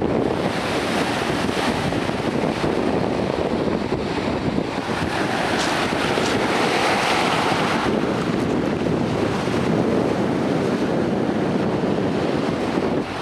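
Lake Superior waves washing up and back over a pebble beach, with wind buffeting the microphone.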